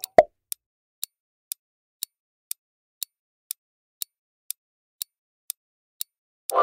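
Countdown timer sound effect ticking steadily, about two ticks a second, after two quick loud pops at the start. A bright ringing chime begins right at the end.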